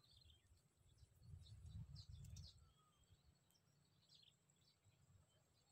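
Near silence with faint, scattered bird chirps, and a brief low rumble about one to two and a half seconds in.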